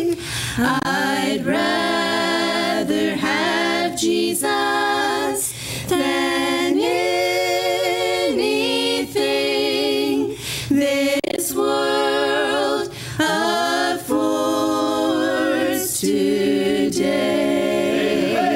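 Female vocal quartet singing a gospel hymn a cappella in harmony, in sustained phrases a few seconds long with short breaks between them.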